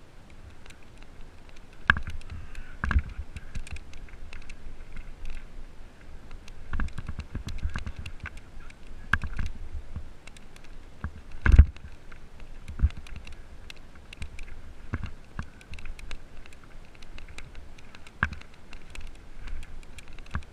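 Mountain bike rolling fast down a gravel trail: tyres crunching over loose stones, with the bike rattling and knocking as it jolts over bumps. The loudest jolt comes about halfway through.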